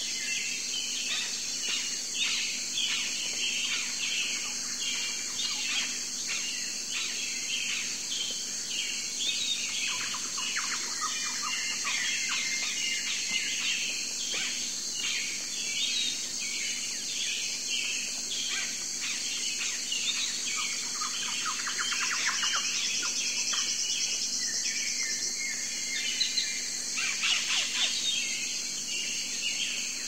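A dense chorus of many songbirds chirping and singing without pause, over a steady high-pitched drone. A fast high trill joins in about two-thirds of the way through.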